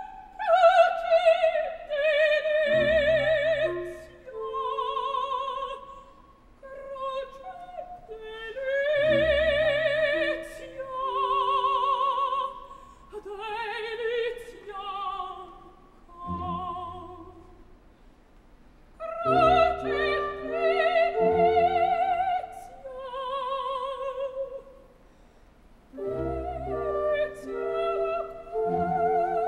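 Operatic soprano singing with wide vibrato, in phrases separated by short pauses, over light orchestral accompaniment whose low chords enter at the start of several phrases.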